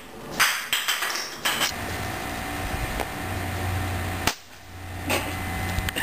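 A few sharp knocks and clatters in the first two seconds, then steady background noise with a low hum. One more short knock comes near the end.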